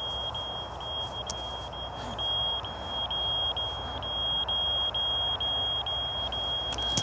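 RC transmitter's low-voltage alarm beeping: one high-pitched tone broken by short gaps about three times a second, the sign of a flat transmitter battery. A low rushing noise runs underneath.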